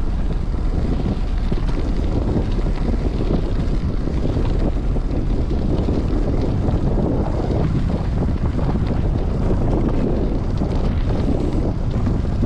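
Wind buffeting the camera microphone: a loud, steady, low rumble.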